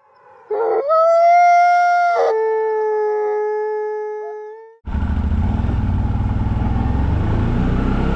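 A long wolf-like howl in two held notes, the second lower, fading out. It cuts off abruptly about five seconds in, and the steady low running of a CF Moto 850XC quad's V-twin engine follows as the ATV rides along.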